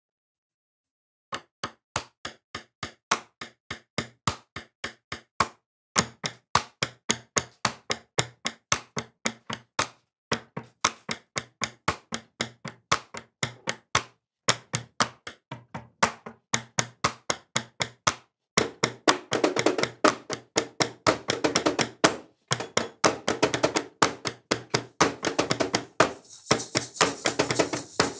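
A rhythmic tapping beat with sharp clicks at about three a second. A low pulse joins it after about six seconds, and it thickens into a dense, busy percussion groove near the end.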